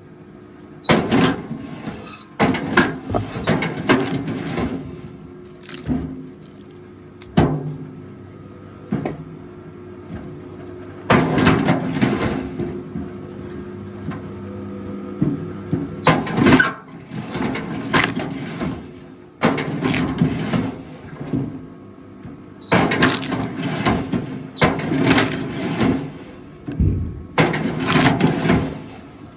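Rack log splitter running with a steady hum, while logs split in repeated bursts of creaking, squealing and cracking wood, about seven in all.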